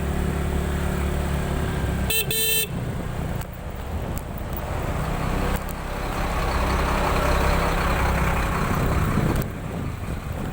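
Suzuki Skydrive Crossover scooter's single-cylinder engine running under way, with a horn beeping once briefly about two seconds in. A rougher rushing noise builds in the middle and drops away near the end.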